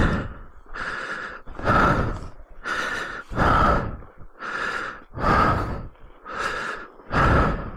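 A person breathing hard and fast, about one loud in- or out-breath every second, out of breath just after a motorcycle crash.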